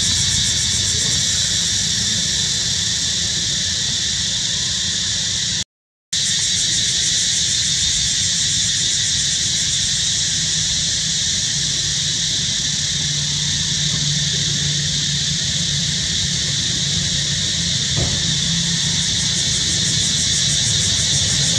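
Steady, loud, high-pitched droning of a cicada chorus, unbroken apart from a brief cut to silence about six seconds in.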